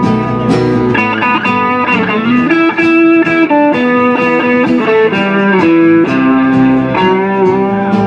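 Live acoustic string music: an instrumental break of plucked guitar and mandolin, with held and sliding notes.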